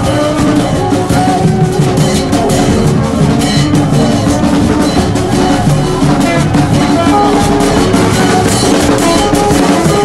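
Street band music: a hand drum beating a steady rhythm with held horn notes over it.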